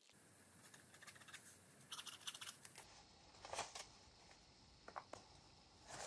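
Faint rustling of paper and card, with a few light clicks and taps, as paper tags and journal pages are handled and pressed down by hand.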